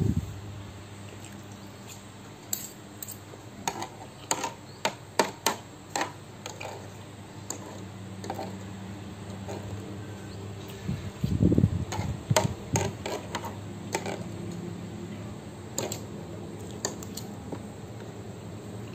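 Metal fork and spoon clicking and scraping against a tray as the last noodles are scooped up, a scattered series of sharp clinks over a steady low hum. About eleven seconds in there is a short, louder low thump.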